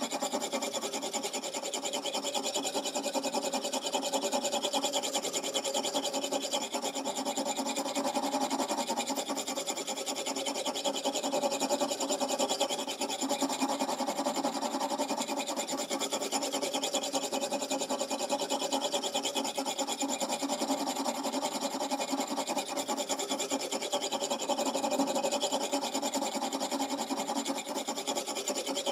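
Steel knife edge being stroked back and forth over an oil whetstone clamped in a guided sharpening system, a continuous scraping of steel on stone.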